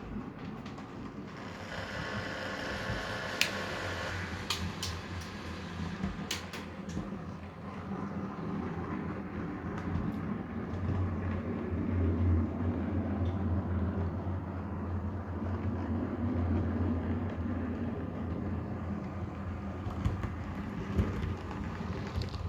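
DCC sound decoder in an OO gauge Heljan Class 27 model locomotive playing a diesel engine sound through the model's small speaker: a steady low engine hum that swells in the middle. A brief higher-pitched sound about two seconds in and a few sharp clicks, which may come from the model running on the track.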